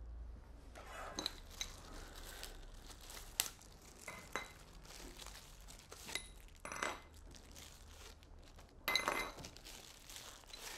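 Faint, scattered metallic clinks and light knocks of Ikea Not floor lamp parts being handled and fitted together, some with a brief ring, a louder cluster about nine seconds in.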